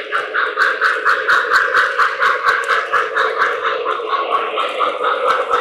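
O-gauge model train running on its track: a quick, even clatter of about six beats a second over a steady hum.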